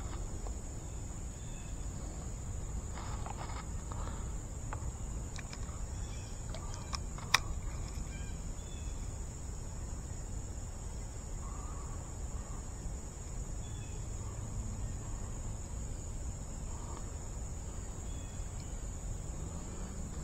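Steady high-pitched insect chorus, typical of crickets or katydids, over a low rumble. There are a few faint clicks, and one sharp click about seven seconds in.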